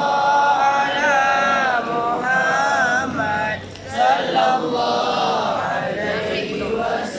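A group of voices chanting or singing together in unison, a slow melody of long held notes that waver in pitch.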